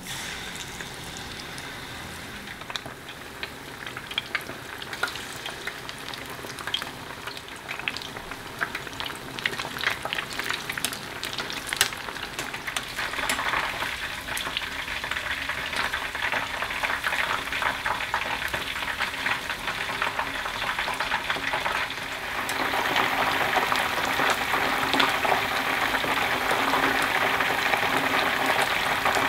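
Battered boneless chicken pieces deep-frying in hot oil: a steady sizzle with many sharp crackling pops, growing louder and busier about three quarters of the way through.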